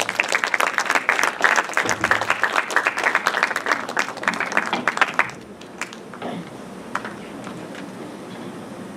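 Audience applauding, stopping about five seconds in; a few faint scattered knocks follow.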